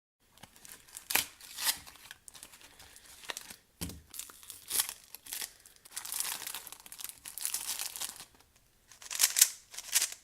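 Packaging being crinkled and torn open by hand: a run of sharp crackles, one longer continuous crinkle in the middle and a dull thump about four seconds in.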